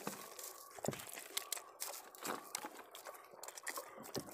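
Close eating sounds of rice and curry eaten by hand from steel plates: a steady run of small wet clicks and crackles from fingers squeezing and scooping rice and from chewing.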